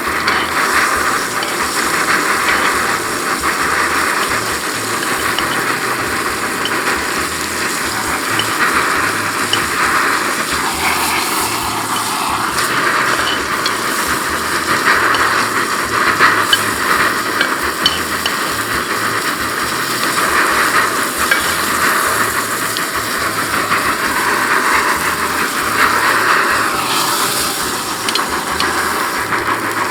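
Ribeye steak sizzling steadily in hot melted butter as it is basted in a tilted pan, the fat spooned over the meat with occasional small clicks and scrapes.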